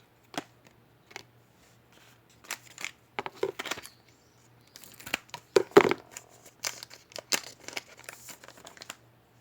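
Trading-card pack wrapper crinkling and tearing as cards are handled: a run of short rustles and clicks, busiest about five to six seconds in.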